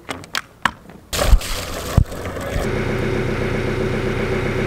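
A few light clicks and knocks, then about a second in the sailboat's inboard engine starts and settles into steady running.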